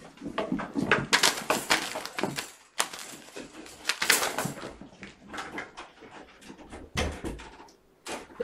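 A flurry of sharp knocks, thumps and rattles from kittens scrambling around a room and batting plastic toys, densest in the first half and thinning out after about five seconds.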